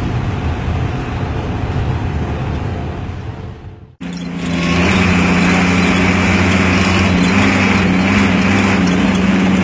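Diesel bus engines with loud aftermarket racing exhausts. A low rumble fades out over about four seconds, then after a sudden cut another bus exhaust runs loud and steady, with a droning note and a tinny rasp on top.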